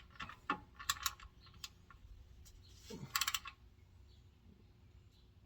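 Ratchet wrench clicking in short bursts, about a second in and again about three seconds in, while threading the oil drain plug back into the pan.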